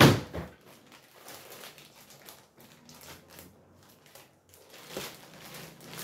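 A sharp knock, then scissors snipping and plastic packaging crinkling faintly, in small irregular clicks and rustles.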